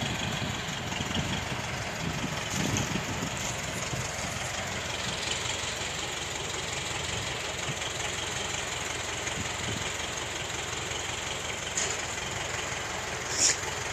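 Universal U-650 tractor's four-cylinder diesel engine running steadily at low revs.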